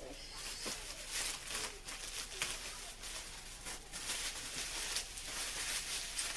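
Packing paper rustling and crinkling in irregular bursts as items are dug out of a large shipping box.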